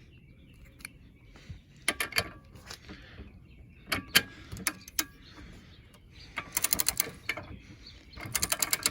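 Scattered metal tool clicks, then two short quick runs of ratchet clicking, about ten clicks a second, the second run near the end. This is a torque wrench ratchet being worked while a bolt is snugged up for a 100 ft-lb test.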